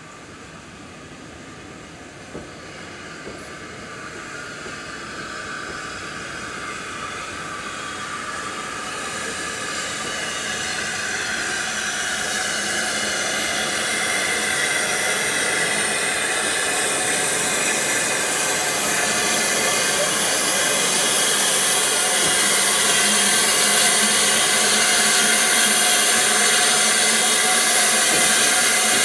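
Small steam tank locomotive drawing its carriages in at low speed, its steam hissing steadily and growing louder as the engine comes alongside.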